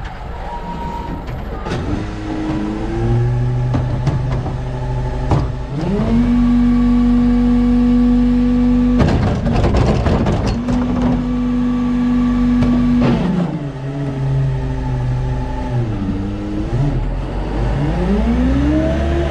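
New Way Mamba automated side-loader garbage truck: the engine revs up and holds a steady higher pitch as the hydraulic arm lifts and tips a cart, with a burst of clattering as the cart is shaken out into the hopper about halfway through. The engine then drops back and revs up again near the end.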